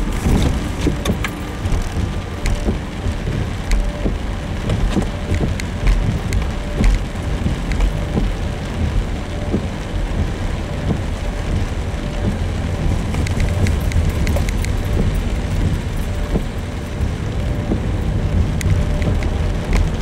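Rain pattering on a Subaru XV's roof and windshield in scattered ticks, over the steady low rumble of the car driving on wet pavement, heard from inside the cabin.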